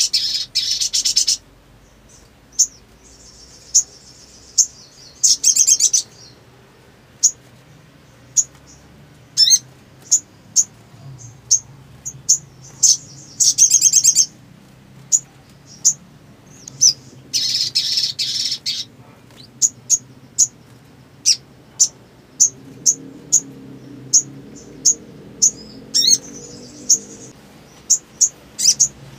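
A sogon songbird (sogok ontong) calling with short, sharp, high chirps, often a couple a second, broken by several rapid trilling bursts about a second long, at the start, around five, thirteen and seventeen seconds in.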